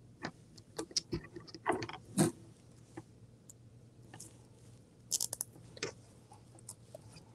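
Scattered rustles and clicks of hands fastening a poly burlap mesh petal to a plastic canvas cross frame. The loudest rustle comes about two seconds in, and there is a quick run of clicks a little after five seconds.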